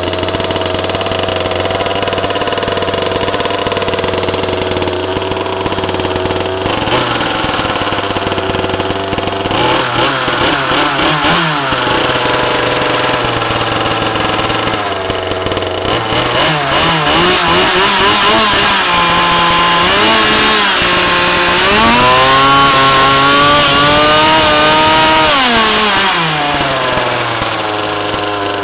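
Carson Comanche's small two-stroke model engine with a tuned pipe, running just after a cold start: it idles, is revved up several times, and holds its longest, highest rev near the end before dropping back to idle.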